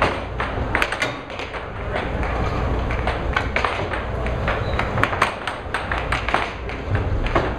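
Air hockey puck clacking off the mallets and the table's rails in a fast rally: sharp, irregular clicks and knocks, several a second.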